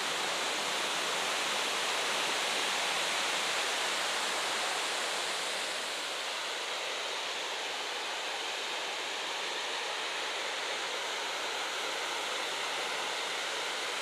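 Steady rush of waterfall water pouring over rock ledges, a dense even hiss with no breaks.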